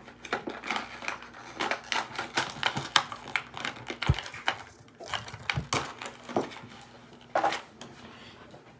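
Packaging being handled: a run of quick clicks, taps and crinkles as a toy is worked out of its box and paper wrapping, with one dull thump about four seconds in.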